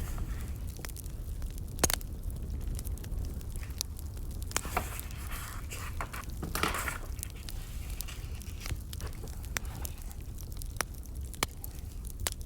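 Burning firewood crackling: scattered sharp pops and snaps over a low steady rumble, with a brief louder hiss a little past halfway.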